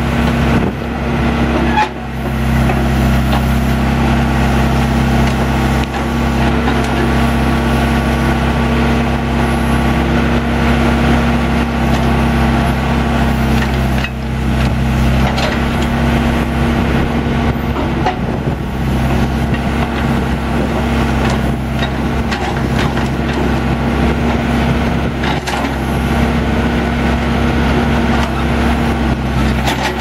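John Deere 310G backhoe loader's diesel engine running steadily under load while the backhoe boom and bucket are worked, with a few knocks along the way.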